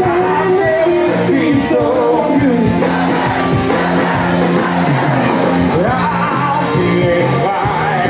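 Live band playing loud rock music with singing, amid shouts from a crowd.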